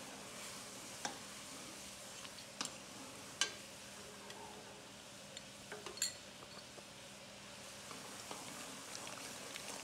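Chicken broth boiling in a pan with a steady bubbling hiss while cornstarch slurry is stirred in with a metal ladle. A few sharp clinks of the ladle sound, the loudest about three and a half seconds in.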